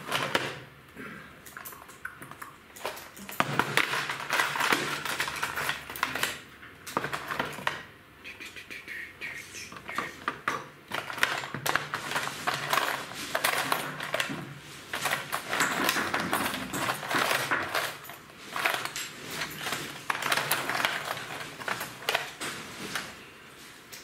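Irregular clicking, clattering and rustling of small hard objects being handled on a tabletop, close to the microphone.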